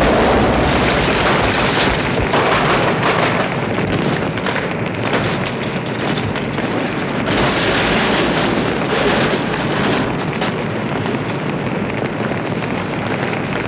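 Limousine exploding and burning: the blast carries straight on into the steady noise of the fireball consuming the car, with dense crackling and popping throughout.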